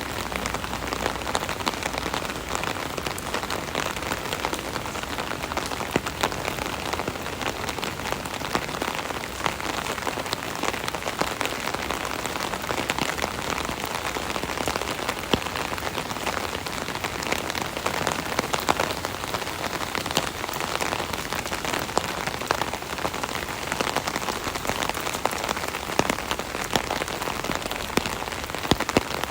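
Steady rain pattering on an umbrella canopy overhead, a dense continuous patter of drops with many sharper individual drop hits.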